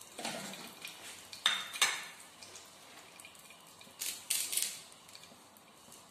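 Kitchen utensils clinking: two sharp metal clinks about a second and a half in, then a brief scraping noise around four seconds in.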